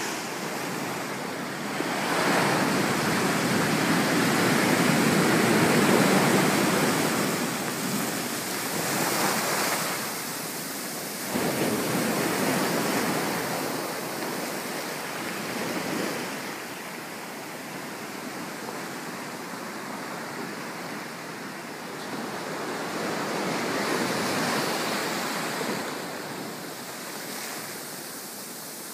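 Pacific Ocean surf breaking on a rocky shore, a steady wash that swells and ebbs with the waves. It is loudest a few seconds in.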